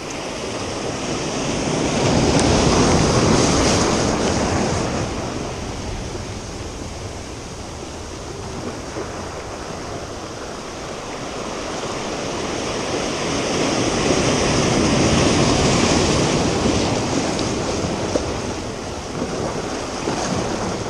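Surf breaking and washing over the rocks of a rocky shore. It swells twice, about three seconds in and again around fifteen seconds, and ebbs in between.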